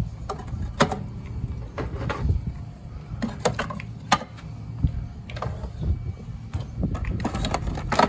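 Wooden hive frames clacking and knocking against each other and the wooden box as they are handled and slid into place: irregular sharp knocks over a steady low rumble.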